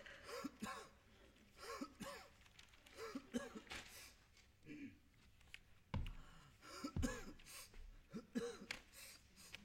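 Newspaper rustling and snapping with short grunts, coughs and throat-clearing noises from the performers, and two heavy thumps about six and seven seconds in.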